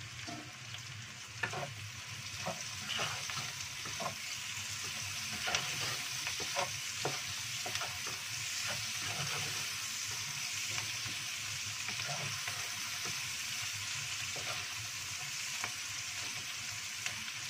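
Sliced shallots, garlic and chilies sizzling in hot oil in a non-stick wok with a steady hiss, stirred with a wooden spatula that scrapes and taps against the pan at irregular moments.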